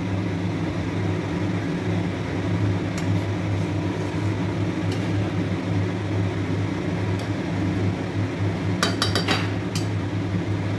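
A steady low machine hum, with a quick run of light metal clinks about nine seconds in, like a utensil against a cooking pot.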